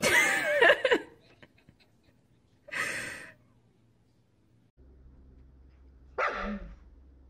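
Husky vocal sounds: a loud, wavering cry at the start, a short noisy burst about three seconds in, and a short cry falling in pitch near the end.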